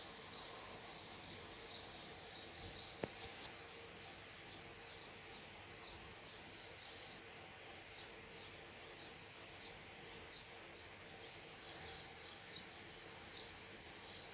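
Faint high-pitched chirping: short chirps repeating irregularly a few times a second over a low steady hiss. A couple of faint clicks come about three seconds in.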